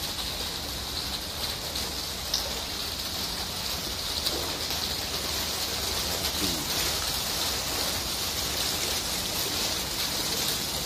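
Light rain falling on standing floodwater, a steady even hiss with a few faint drip-like ticks.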